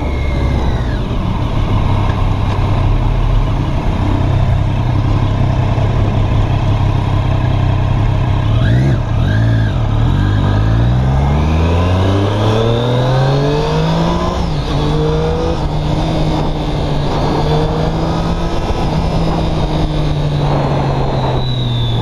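Sport motorcycle engine heard on board: it runs steadily at a low note, then revs up, rising in pitch from about ten seconds in as the bike accelerates. It holds a higher steady note and eases off near the end, over constant road and wind noise.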